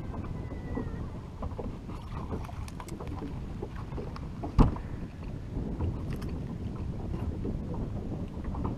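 Wind on the microphone and water slapping against a bass boat's hull, with scattered small knocks and clicks as a spotted bass is swung aboard and handled. One loud sharp thump about four and a half seconds in.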